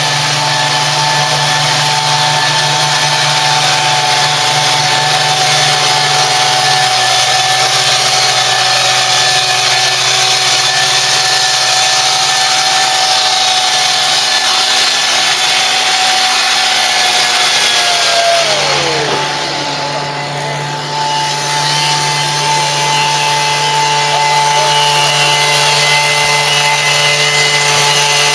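Single-operator tea plucking machine running steadily at high speed on its small engine. About two-thirds of the way through, its pitch falls as it slows, then it speeds back up a few seconds later.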